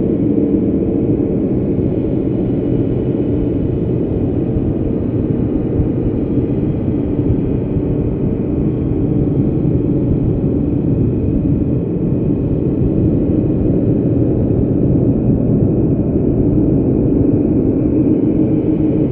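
A steady, low rumbling drone from the installation's sound design, with a few faint held tones inside it and no break or change.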